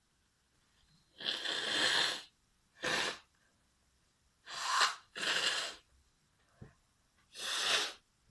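Five sneezes in a row. The first, about a second in, is the longest; the rest are shorter and irregularly spaced.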